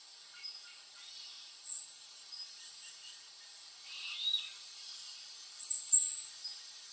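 Bird calls in an outdoor field recording: a few short, high chirps, the loudest about two seconds in and again near the end, over a steady insect drone.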